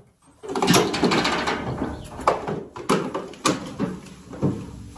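Calves' hooves clattering on a livestock trailer's metal ramp and floor as they are unloaded, a busy scramble followed by a run of sharp knocks.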